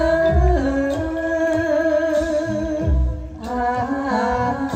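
Likay stage music: a singing voice holds long notes that step down in pitch over backing music with a steady low drum beat, dipping briefly about three seconds in.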